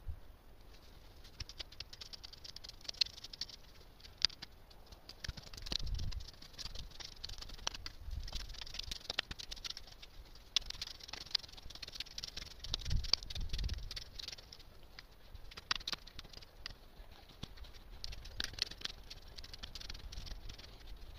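Hand hoe scraping and chopping through a heap of dry soil and leaf litter: a run of gritty scrapes and small crackling clicks as the clods and leaves are pulled and broken up, with a few dull low thumps.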